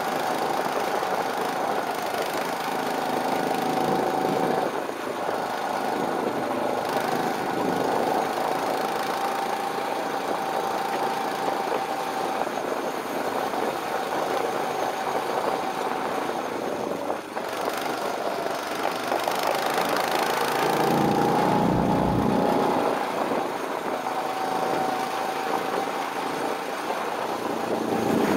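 Go-kart's small petrol engine running under way, a steady whine that dips briefly now and then and rises a little about three quarters of the way through, joined there by a deeper rumble for a couple of seconds.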